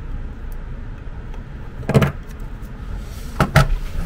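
Handling noises of a printed circuit board and small pliers on a tabletop: one sharp snap about two seconds in, then two quick knocks close together near the end, over a steady low hum.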